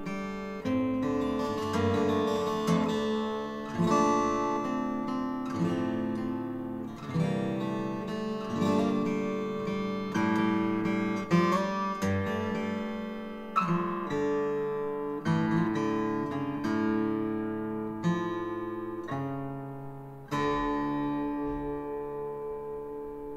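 Solo acoustic guitar played fingerstyle: a slow melody over plucked chords, each note or chord ringing and fading before the next. Near the end a chord is struck and left to ring out.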